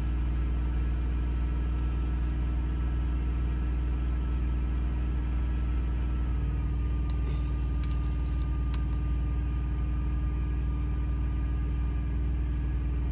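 Semi truck's diesel engine idling: a steady low drone, heard from inside the cab.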